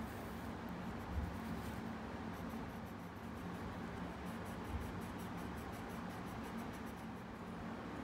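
Coloured pencil scratching on paper in quick, repeated short strokes while colouring in, over a steady low hum, with two soft knocks.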